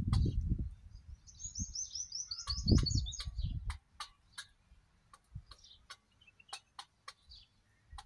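Indian peafowl pecking pearl millet from a metal bowl: sharp, irregular clicks of its beak against the metal. A quick run of high chirps from a small bird starts about a second in and lasts a couple of seconds, and a low rumble comes and goes near the start and around three seconds in.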